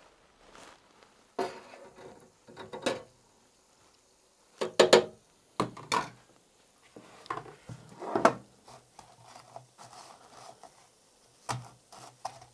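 Metal clatter from a wire frying skimmer and metal baking trays: several separate sharp clinks and knocks as fried donuts are lifted from the deep fryer and set on the tray. The loudest are two knocks close together about five seconds in.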